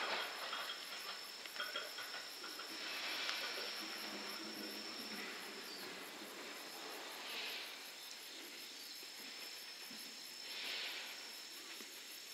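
Insects droning steadily in roadside summer vegetation, a high continuous tone with a few swells. The sound of a departing electric train dies away beneath it in the first couple of seconds.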